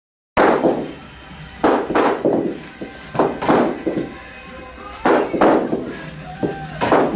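Heavy battle ropes slapping the rubber gym floor in quick clusters of about three thuds, one cluster roughly every second and a half as the ropes are thrown from side to side, with music playing.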